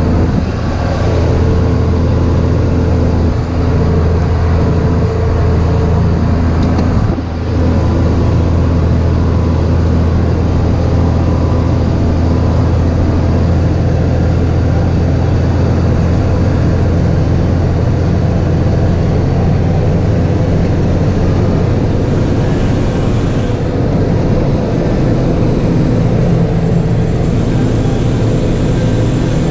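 Large diesel farm machine engine running steadily under load, with a brief dip in level about seven seconds in.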